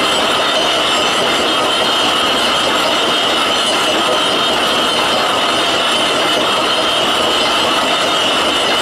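CBN insert turning a slurry pump casting on a lathe: steady cutting noise with a high whine held at one pitch.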